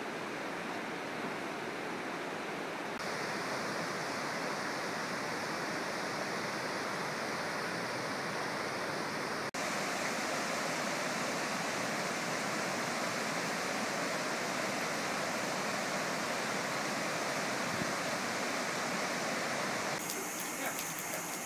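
Shallow river water rushing over flat rock ledges and small cascades: a steady, even rush with a momentary dropout about halfway through.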